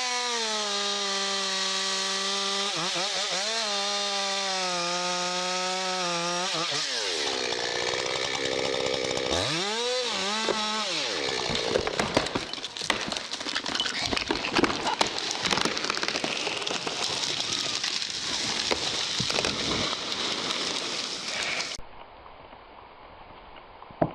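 Chainsaw held at full throttle with slight dips in pitch as it bites, dropping off about seven seconds in, then revving up and down once more. This is followed by about ten seconds of dense crackling and snapping, before a sudden cut to a much quieter sound near the end.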